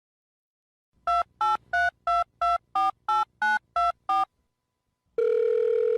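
Telephone keypad dialing tones: ten short two-note beeps in quick, even succession, about three a second, as a number is dialed. After a short pause, a steady phone tone starts about five seconds in, as a call rings out.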